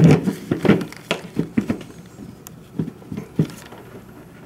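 Air filters being handled and set down on a table: a scatter of light knocks and taps from their plastic and rubber frames, strongest in the first second and again about three seconds in.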